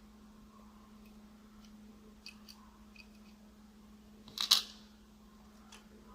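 Small parts of a die-cast scale model being handled: a few faint clicks, then a louder short click and rustle about four and a half seconds in, over a steady low electrical hum.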